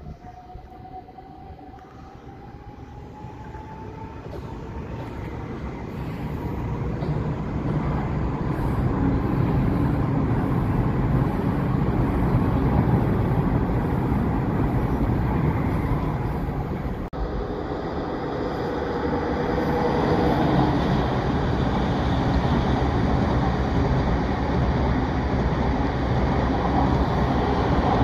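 Electric multiple-unit trains running through a station below: a motor whine rising slowly in pitch as a train gathers speed, with the rumble of the train growing louder over the first ten seconds. After a sudden break, a train runs past close by with a steady rumble and wheel hiss.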